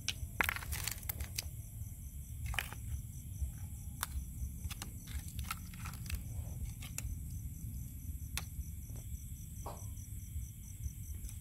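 Scallop shells clicking and scraping against each other in a plastic basin as a hand sorts through them: scattered sharp clicks, a dense cluster about half a second in, over a steady low rumble.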